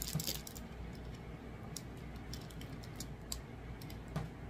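Clear plastic protective film on a diamond painting canvas crinkling and crackling as it is handled, in scattered small clicks that are thickest in the first half second.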